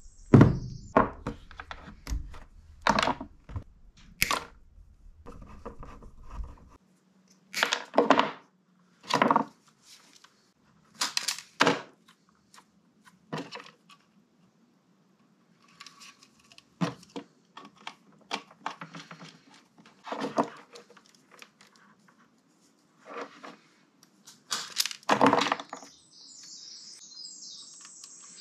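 Hand tools and small parts clicking and knocking on a plywood workbench at uneven intervals. A wire stripper and crimper snap shut on wire ends, and tools are picked up and set down. Some clicks are sharp and loud, with quiet gaps between.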